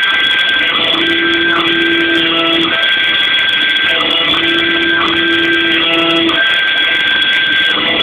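Homemade CNC router cutting a template in board: the Kress spindle runs with a steady high whine, while the axis stepper motors whine at steady pitches that switch on, off and change every second or so as the machine's moves change.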